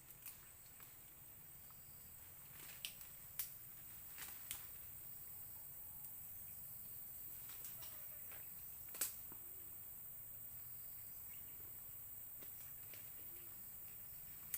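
Quiet outdoor ambience: a steady high insect drone and hiss, broken by a few scattered sharp clicks, the loudest about nine seconds in.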